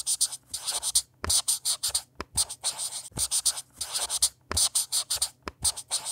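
Pen scratching on paper in quick strokes, a handwriting sound effect, about three to four strokes a second with brief pauses between runs.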